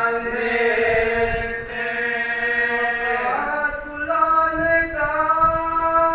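Men's voices chanting a Shia mourning elegy into a microphone in long drawn-out notes, stepping to a new note about three seconds in and again near five seconds.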